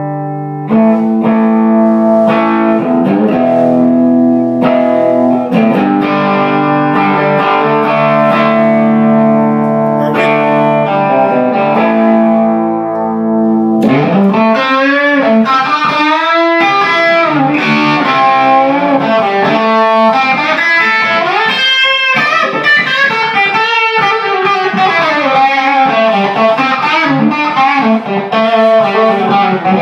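Electric guitar played through a 10-watt 6AQ5 valve amplifier (GR JKD). Held, ringing chords for about the first half, then a busier lead line with string bends.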